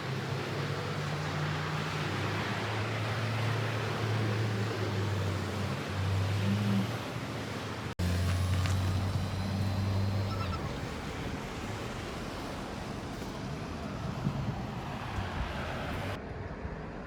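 Outdoor snowstorm noise: a steady rush of wind with a vehicle engine humming close by, which stops about ten seconds in. A sudden break about eight seconds in.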